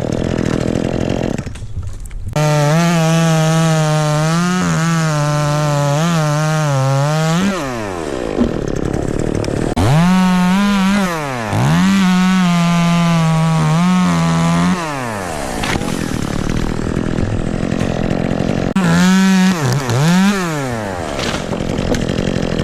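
Chainsaw cutting ash wood: the engine revs up to full throttle and holds for about five seconds while cutting, its pitch wavering under load, then drops back to idle. A second long cut starts about ten seconds in, and a short burst of throttle comes near the end.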